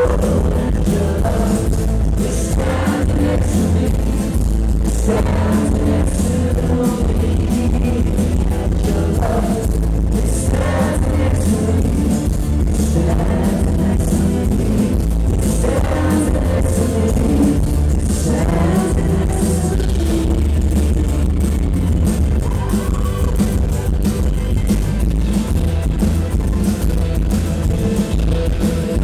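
Live band playing a rock song, with a male voice singing, acoustic guitar, drums and tambourine. It is recorded from within the audience, with a heavy, boomy bass.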